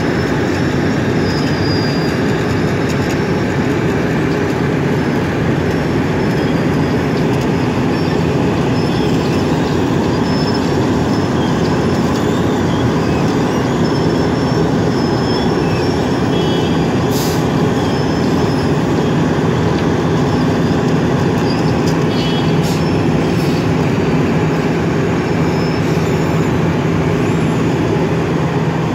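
Wirtgen cold milling machine running steadily under load, its engine and cutting drum grinding up the asphalt road surface while the conveyor drops the millings into a dump truck. The din stays loud and even throughout, with a few faint clicks.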